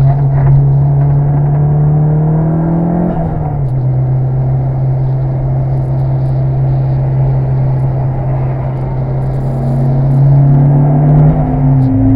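Mitsubishi Lancer Evolution VI Tommi Mäkinen Edition's turbocharged four-cylinder engine pulling under steady throttle, its pitch climbing slowly. The pitch drops suddenly at an upshift about three seconds in, then climbs again until another shift at the very end.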